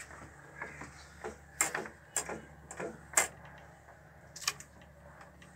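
Irregular sharp metallic clicks and taps from hands working at an old stationary diesel engine as it is made ready to start, about a dozen in all, over a faint steady low hum.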